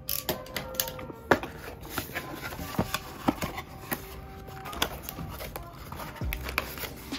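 Plastic building bricks being handled and pressed together, giving irregular sharp clicks about one or two a second, over soft background music.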